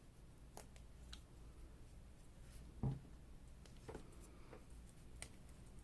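Quiet handling of craft materials on a tabletop: faint scattered taps and light scratchy rustles, with one soft thump about three seconds in.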